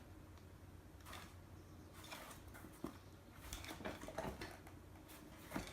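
Faint handling noises: scattered soft rustles and light taps as things are moved about by hand, a few every second or so.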